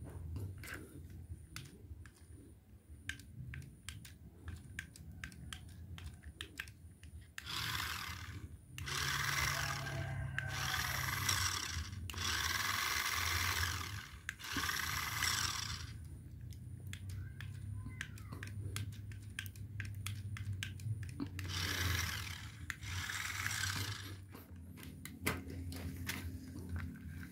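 Electric drive motors and plastic gearboxes of a small toy RC rock crawler whirring in bursts of one to two seconds as the wheels spin freely under the remote's control, with light plastic clicks and handling between. Five bursts come in quick succession about a third of the way in, and two more later.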